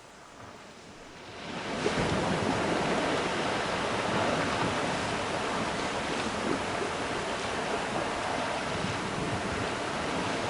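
Sea surf washing against a rocky shore, with wind, fading in about a second and a half in and then holding steady.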